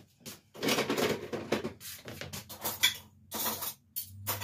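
Dishes and kitchen utensils clattering and clinking as they are handled and put away, a run of sharp knocks with a denser stretch of clatter about a second in.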